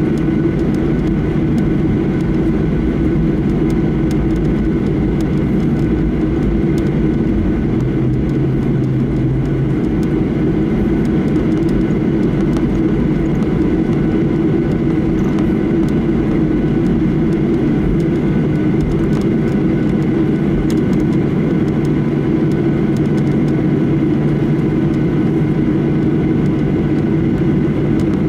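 Steady drone of a Boeing 737-800's CFM56-7B engines and airflow heard inside the passenger cabin: a low rumble with a few faint steady whine tones above it. A short low hum joins in about eight seconds in.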